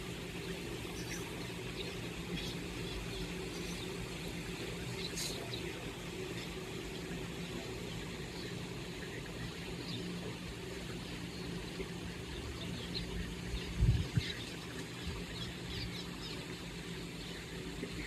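Swallows twittering in scattered short, high chirps over a steady low hum, with a single low thump late on.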